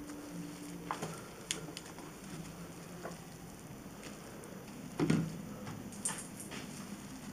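Soap foam crackling and wet fur squelching as a soaked kitten is handled and rubbed by hand, with scattered small clicks and one dull bump about five seconds in.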